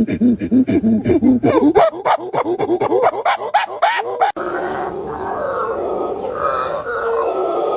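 Animal calls: a rapid series of short pitched calls, about five a second, then an abrupt change about four seconds in to a different, continuous rough call.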